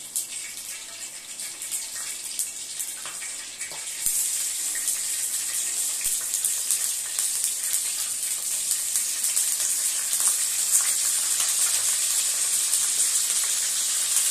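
Hot oil sizzling in a stainless-steel kadai as a South Indian tempering fries, with scattered crackles of mustard seeds popping. The sizzle grows much louder about four seconds in as chopped green chillies go into the oil, and stays loud after that.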